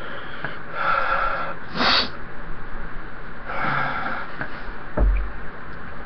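A man breathing hard and sniffing through the burn of Carolina Reaper pepper puree, with three heavy breaths, the one about two seconds in short and sharp. A low thump comes about five seconds in.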